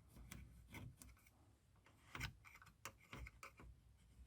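Faint, scattered clicks and light scratches of a pencil marking a bath panel through the hole of a magnetic cupboard catch.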